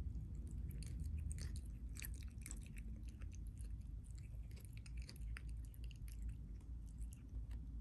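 A cat biting off and chewing blades of fresh cat grass close to the microphone: quick, irregular crisp crunches and snips.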